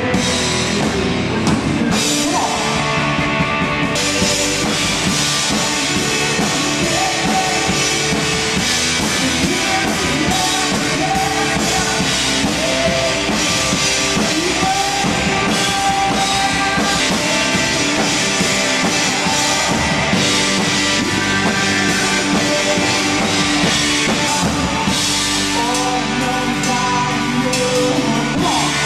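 Live rock band playing a song, with a male singer singing into a microphone over drums and guitar.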